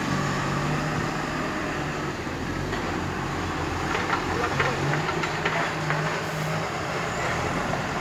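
Loaded tipper truck's diesel engine running steadily as the truck drives slowly away. A cluster of sharp knocks and clatters comes about halfway through.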